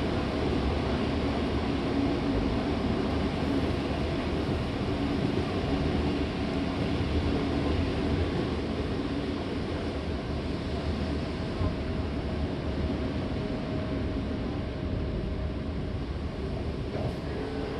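Seibu 6000 series electric train, with Hitachi GTO-thyristor VVVF inverter drives, running along the line: a steady rumble with faint steady tones in it that eases slightly toward the end.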